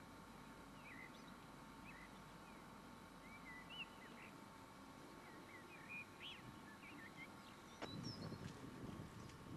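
Faint chirping of small birds, many short calls scattered throughout over a faint steady hum. Near the end, a sharp click followed by low rumbling.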